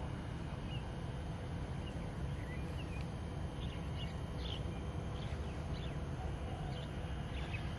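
Outdoor ambience of birds giving short, scattered chirps over a steady low background rumble.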